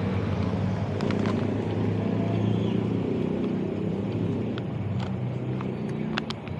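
City street traffic: car engines running and passing in a steady low rumble, with a few light clicks.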